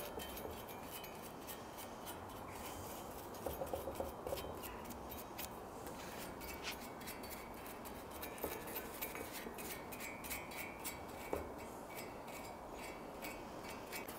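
Faint, irregular small clicks and light metallic taps as a brush works wax onto a rusty hand-forged iron candle holder.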